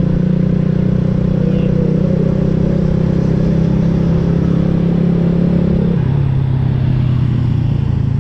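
Honda Wave RSX 110's single-cylinder four-stroke engine running at a steady cruise, with wind rumble on the microphone. About six seconds in the engine note drops as the throttle eases off, then picks up again near the end.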